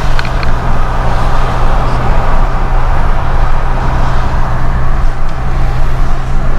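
Steady road noise of a moving car in the rain: a low engine hum under an even rushing hiss of tyres on a wet road and rain.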